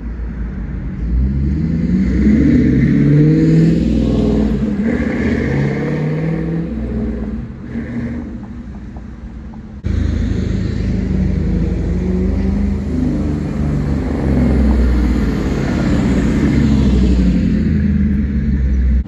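Roush Mustang driving past, its exhaust going through mufflers that the owner is 99% sure are Spintechs; the engine note rises and falls as the car accelerates by. About ten seconds in the sound jumps abruptly into a second pass.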